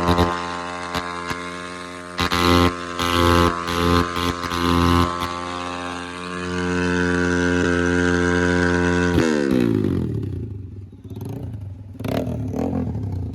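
An engine running at steady speed, then slowing about nine seconds in, its pitch falling as it drops back.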